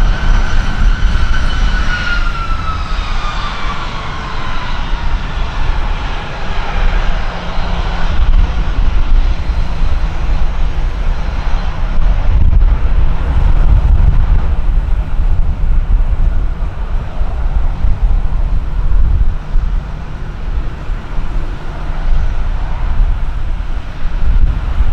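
Airbus A321 jet engines at taxi power as the airliner rolls past: a whine that falls in pitch over the first few seconds, over a steady low rumble. Gusty wind buffets the microphone.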